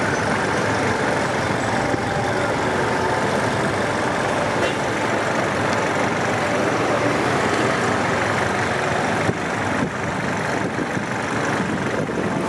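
Steady city street noise: motor traffic running, with people talking in the background.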